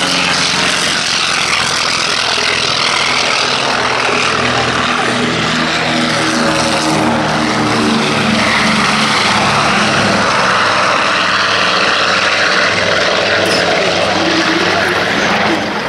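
Twin Pratt & Whitney R-1830 radial piston engines of a PBY Catalina flying boat running at take-off power as it lifts off. The propeller drone is loud and steady, and its pitch slowly shifts as the aircraft passes.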